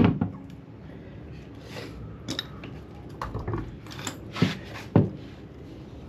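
Metal parts and tools clinking and knocking as they are handled during engine work, with a few separate sharp knocks.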